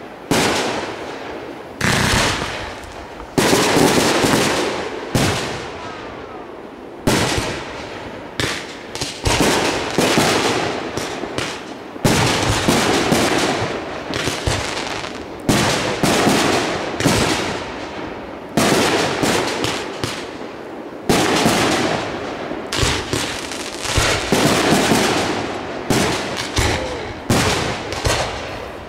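Aerial fireworks shells bursting in quick succession, a sharp bang about every second, each trailing off.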